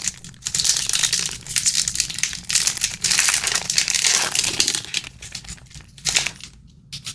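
Trading-card pack wrapper being torn open and crinkled: dense crackling for about five seconds, then a few short rustles near the end.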